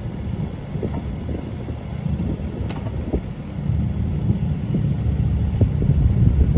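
2015 Kubota U17VR1 mini excavator's diesel engine running under hydraulic load as the boom swings and the arm and bucket move, with a few sharp clanks; it gets louder in the second half.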